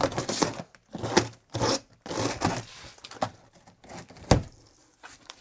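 Box cutter slicing through packing tape along the seam of a large cardboard box, in several short scratchy strokes, with one sharp knock about four seconds in.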